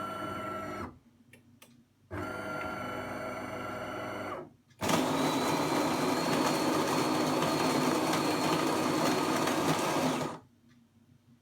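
DeLonghi Magnifica bean-to-cup coffee machine starting a one-cup brew cycle: a steady motor whine that stops about a second in, a second whine of about two and a half seconds, then a louder, rougher mechanical run of about five and a half seconds that cuts off near the end.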